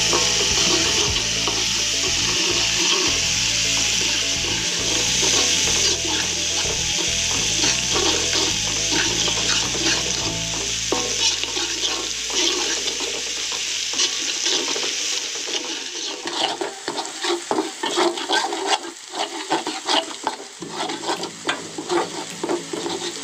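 Ground chili and shallot spice paste sizzling in hot oil in a metal wok while a metal spatula stirs it, sautéed until fragrant. The sizzle is steady for the first half, then thins out, and quick scrapes and taps of the spatula against the wok become the main sound.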